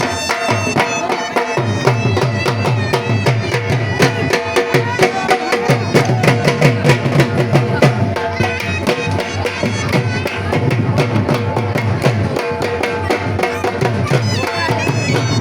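Traditional folk music: fast, dense drumming under a sustained melody line.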